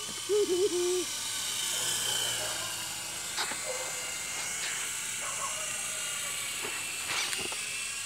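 Toy remote-control helicopter's small electric motor and rotors whining steadily in flight. A brief loud wavering tone comes about half a second in, and a few faint ticks come later.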